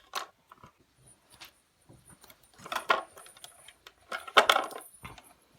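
Clinking and rattling of small hard objects being handled, in two louder bursts about three and four and a half seconds in, with lighter clicks between.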